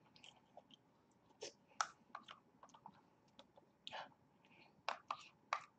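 Faint, scattered clicks of a spoon against a plastic sundae cup, with small wet mouth sounds of eating soft-serve ice cream close to the microphone.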